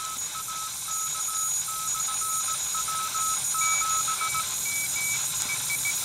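Morse code (CW) tones from a PreppComm MMX Nomad HF transceiver's speaker, keyed dots and dashes over steady band hiss. One station's tone keys until about four seconds in, and a second, higher-pitched station overlaps it and carries on to the end.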